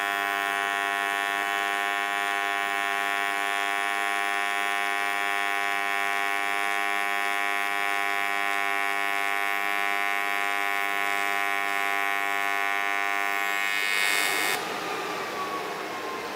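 AC TIG welding arc on aluminum, a steady electrical buzz with a stack of even overtones, held at a constant pedal while filler rod is dabbed into the puddle. The arc cuts off about fourteen seconds in.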